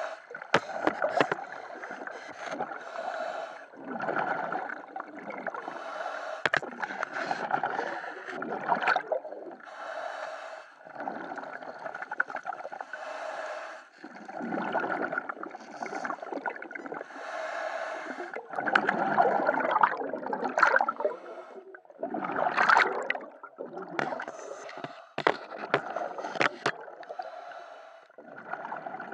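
Scuba diver breathing through a regulator underwater: hissing inhalations and bubbling exhalations, repeating every couple of seconds.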